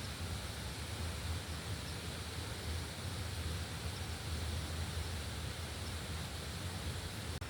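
Steady outdoor ambience: a river flowing, an even continuous rush with no distinct events.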